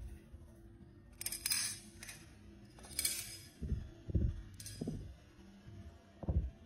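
Balisong (butterfly knife) being flipped: its metal handles and blade clink against each other in three quick clusters, and there are four dull low thumps in the later part.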